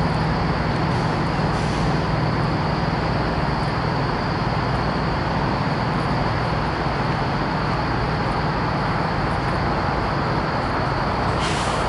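Steady low drone of parked semi trucks' diesel engines idling, with a brief hiss near the end.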